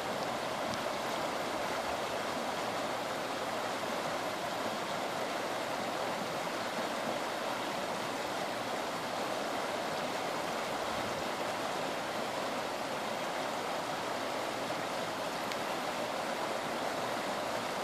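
A creek in flood: fast, muddy floodwater rushing past in a steady, even rush of running water with no breaks.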